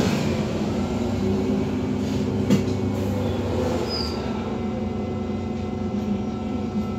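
Iveco Urbanway 18 GNV natural-gas articulated bus heard from inside while driving slowly. Its engine and drivetrain give a steady hum under road noise, with one sharp click about two and a half seconds in.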